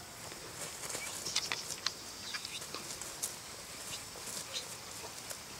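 Faint, irregular rustling and short ticks in grass as a Rottweiler puppy runs after a flirt-pole lure dragged across the ground.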